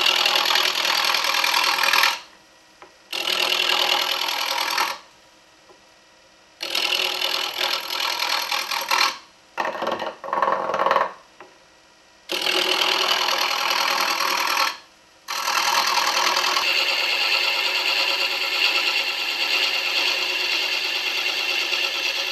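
A turning tool cutting a wooden blank spinning on a wood lathe, in a series of passes lasting a few seconds each with short breaks between them, ending in one long cut of about seven seconds. The blank is still out of round and is being roughed down to a cylinder.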